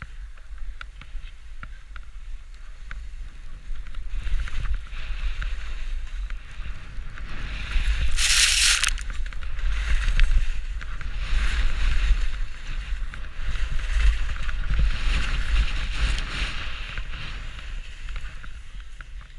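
Skis carving and scraping down steep snow: a swishing hiss that swells and fades with each turn, with a louder rush of snow about eight seconds in. Under it runs a constant low rumble of wind buffeting the camera's microphone.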